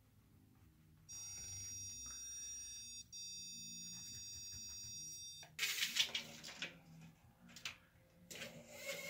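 Electronic stud finder beeping, one steady high-pitched tone lasting about four seconds with a brief break near the middle, the signal that it is over a stud. After it stops, a few seconds of scraping and knocking as a steel tape measure is handled against the wall.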